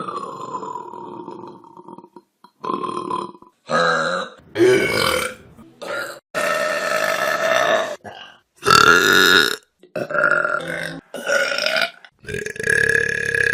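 A rapid string of about ten loud human burps, one after another, each cut off abruptly. Some are short; others are drawn out over a second or more. The first is long with a falling pitch.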